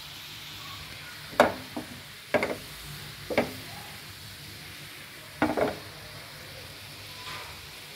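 Green sugar syrup boiling in a non-stick pan with a steady bubbling hiss. A spoon knocks and scrapes against the pan about five times as the syrup is stirred, most of them in the first half.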